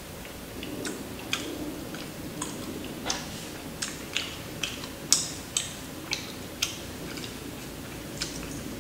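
Paper napkin crinkling while greasy hands are wiped with it, giving about a dozen irregular sharp crackles, the loudest about halfway through.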